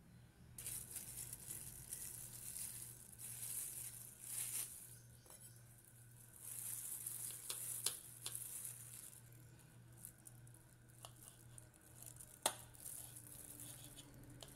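Clear plastic food-prep glove crinkling and rustling as a hand handles pineapple rings on a plate, coming and going in bursts, with two sharp clicks, one about eight seconds in and one near the end.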